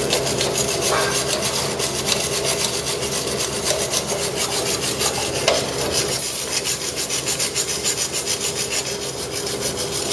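Stainless steel wire brush scrubbed quickly back and forth over the aluminum of a snowmobile chaincase cover, a steady run of scraping strokes. This is the cleaning of the aluminum before TIG welding.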